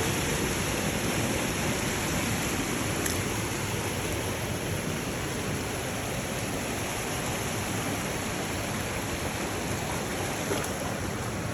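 Rushing water of a rocky jungle stream pouring over small cascades into pools, a steady even rush.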